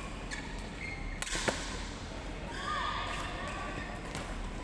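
Badminton rackets striking a shuttlecock during a rally: several short, sharp cracks, the loudest about a second and a half in and another near the end.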